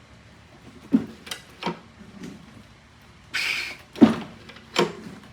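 A series of irregular knocks and clunks, the loudest about four seconds in, with a short hiss just before it.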